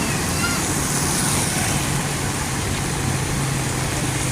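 Street traffic in heavy rain: vehicle engines running with a steady low hum, over an even hiss of rain and wet roadway.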